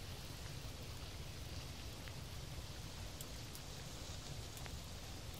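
Steady water ambience: an even hiss with a low rumble underneath and a few faint light ticks.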